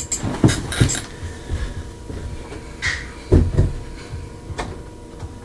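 Several dull knocks and bumps of things being moved or set down: a couple about half a second in, a louder pair about three and a half seconds in, and a sharp click a second later.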